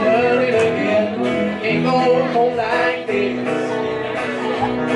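A live band playing a song, with guitar prominent.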